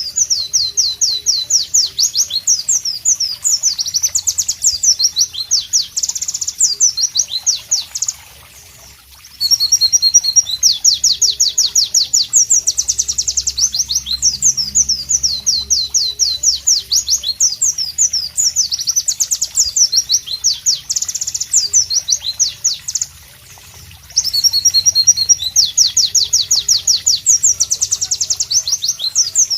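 White-eye (pleci) singing loudly: long runs of rapid, sharp, high notes, broken by two short pauses of about a second.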